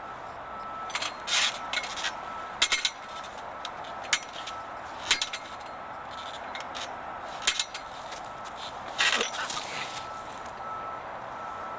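Scattered sharp knocks and metallic clinks, singly and in short clusters a second or two apart, as someone grips and swings from metal playground bars, over a steady outdoor hiss and a faint steady high tone.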